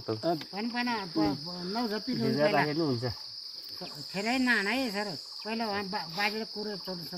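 Insects trilling in a steady, high, even drone, under a person's voice talking in phrases, with a short pause about three seconds in.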